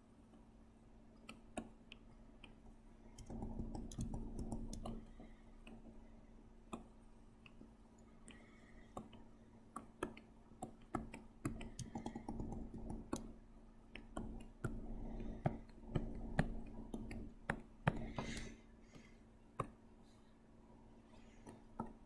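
Irregular clicks and taps from computer input while drawing digitally, with stretches of low rustling or scraping noise in between. A faint steady low hum runs underneath.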